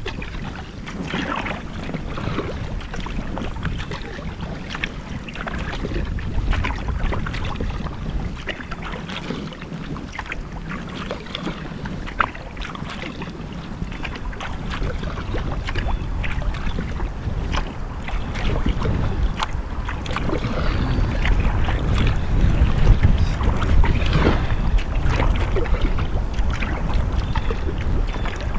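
Kayak paddling on a river: irregular splashes and drips from the paddle blades, over a low wind rumble on the microphone that grows louder in the last third.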